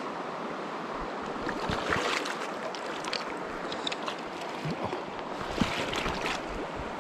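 Steady flow of a river with two bursts of splashing, about two seconds in and again near six seconds: a hooked brown trout thrashing at the surface as it is drawn in on a fly line.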